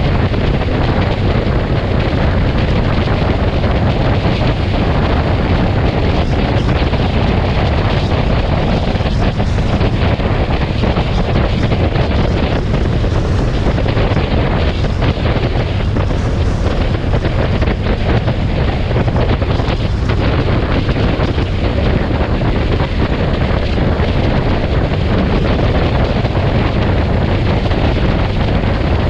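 Steady wind noise rushing over the microphone of a vehicle moving at highway speed, with engine and road noise underneath, unbroken throughout.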